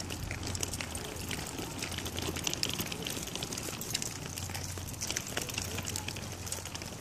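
Pet stroller wheels rolling over rough asphalt: a steady low rumble with many small irregular clicks and crackles of grit under the wheels.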